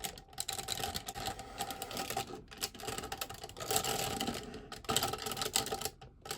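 Plastic combining-robot toy parts being handled and fitted together: a steady run of small clicks, taps and rattles as a piece is put back into the gorilla zord.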